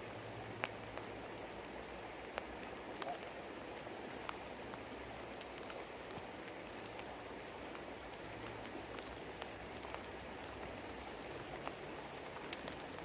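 Steady rain falling by a running river, with scattered sharp taps of single drops landing close by.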